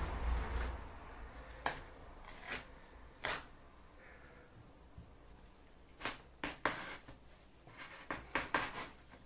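Scattered clicks and light knocks as a tape-sealed PVC pipe mailing tube and its end cap are handled and opened by hand, after a short scratchy rasp at the start. The clicks come singly for the first few seconds, then in a quick cluster near the end as the cap is gripped and twisted.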